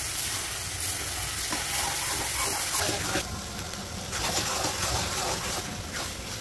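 Salted hilsa and Malabar spinach leaves sizzling in a hot wok, with a spatula stirring and scraping through them against the pan.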